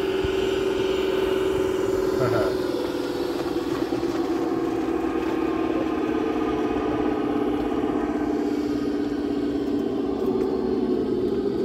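Golf cart running at a steady pace with a steady pitched motor hum. The hum drops slightly in pitch about two and a half seconds in and again near the end as it slows.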